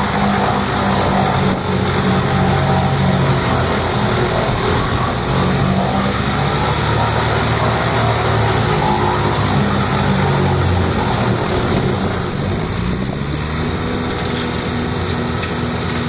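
Camon wood chipper's engine running steadily, its pitch wavering and shifting about two thirds of the way through before settling again.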